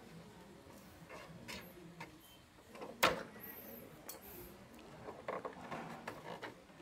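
Small handling sounds of hands working on motorbike wiring and a plug connector: one sharp click about three seconds in, with light clicks and rustling either side of it.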